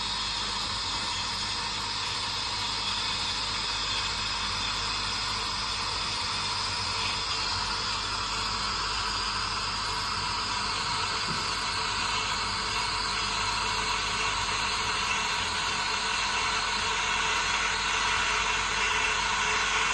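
Coffee machine's steam wand frothing and heating milk in a jug: a steady hiss that grows a little louder near the end as the milk warms toward 65 °C.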